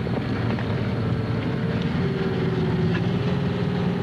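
Tractor engine running steadily, with its pitch dropping slightly about halfway through.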